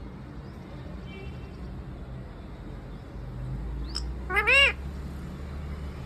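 Rose-ringed parakeet giving one loud call that rises and falls in pitch, about four seconds in, over a low steady hum.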